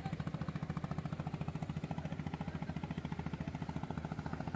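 A tour boat's engine running at a steady idle: a rapid, even chugging of about a dozen beats a second.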